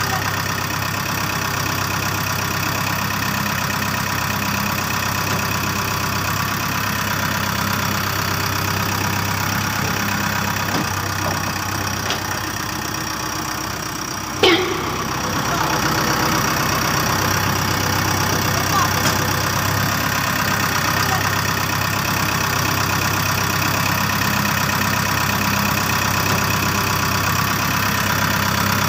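Steady engine-like idling drone, even in pitch throughout, with one sharp click about halfway through, after which it runs slightly louder.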